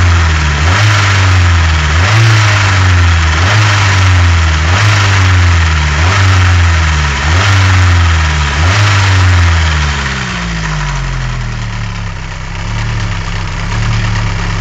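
Warm Nissan SR20DET turbo four-cylinder blipped about seven times, each short rev falling back, then settling to a steady idle near the end. It is running with the knock that appears once the engine is warm and goes away when it cools; the owner suspects the tensioner or cams.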